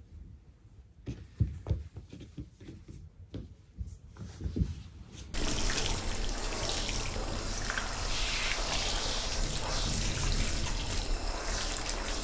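Soft rustles and light knocks of towels being laid out on a wooden floor; about five seconds in, a handheld shower starts spraying water steadily in a small tiled bathroom, over a tabby cat being bathed.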